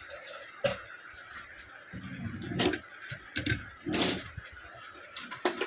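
Metal CPU heatsink being handled, set down and pressed onto a mini PC motherboard: four or so sharp clicks and knocks with duller handling noise between them.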